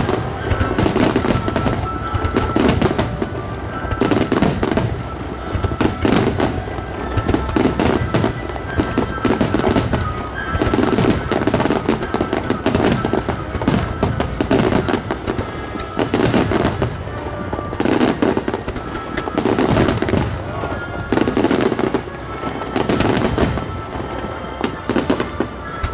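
Starmine fireworks barrage: shells bursting in rapid, continuous volleys, with music playing underneath.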